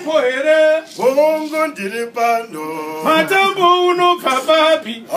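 Men's voices singing unaccompanied in short sung phrases, with the gourd shakers silent.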